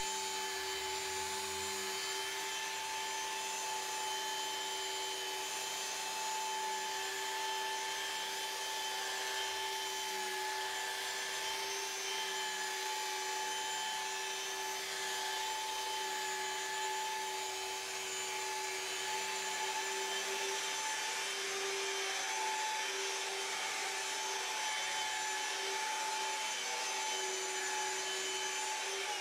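Festool Shinex rotary polisher running steadily at constant speed with a foam pad on car paint: a continuous motor hum over a soft hiss, during the first polishing pass with a polishing compound to take holograms out of soft black lacquer.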